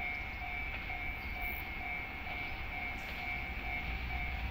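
Level-crossing warning bell ringing in an even rhythm, about two strikes a second, as a train approaches, over a low rumble.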